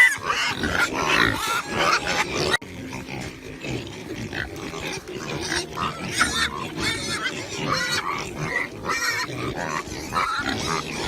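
Pigs grunting and squealing in a quick run of short calls. The sound drops in level about two and a half seconds in and carries on more softly.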